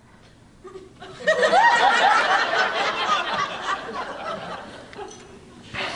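Comedy-club audience laughing. The laughter breaks out about a second in, is loudest at first and tapers off toward the end.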